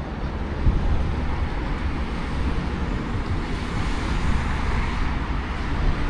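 Steady road traffic noise: a constant low rumble and hiss with no single vehicle standing out.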